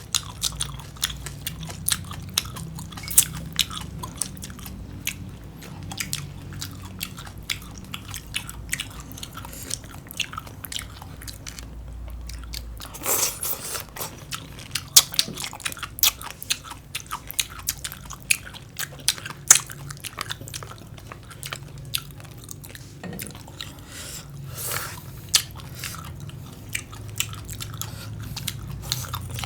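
Close-up chewing and crunching of raw green papaya salad and cucumber: many crisp, irregular crunches and bites with wet chewing between them.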